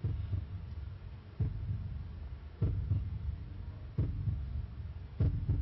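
A slow, deep thumping beat, one thud about every second and a third, some thuds doubled.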